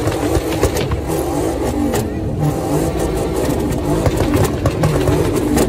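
Car engine revving, its pitch rising and falling again and again, over the noise of a large crowd.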